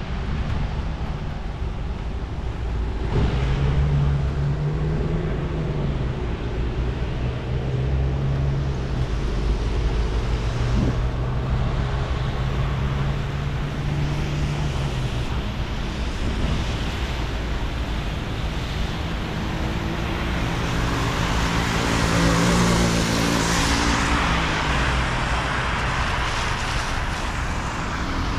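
Road traffic on a wet city street, heard from a moving bicycle over a constant low rumble. Engines hum steadily, and a hiss of tyres on wet asphalt swells about twenty seconds in as vehicles pass close.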